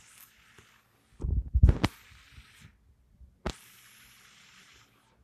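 Handling noise from a phone held close to its microphone: a quick cluster of low thumps about a second in, and a couple of sharp clicks, from fingers tapping and gripping the device, over a hiss that cuts in and out.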